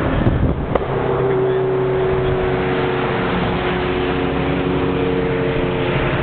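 Vintage race car driving past the road-level microphone: one car goes by close about half a second in, then a steady engine note slowly falls in pitch as the car draws away.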